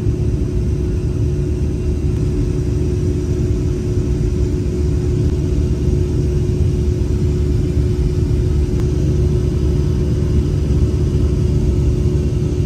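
Airliner turbofan engines at takeoff power heard inside the cabin during liftoff and initial climb: a steady low rumble with a constant hum running through it.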